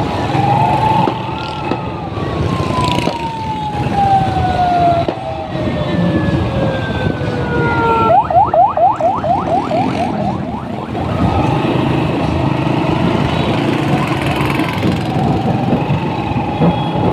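Electronic siren sounding in long, slow falling wails, then switching about eight seconds in to a fast yelp of about seven rising chirps a second for some three seconds, over the steady running of small motorcycle engines in traffic.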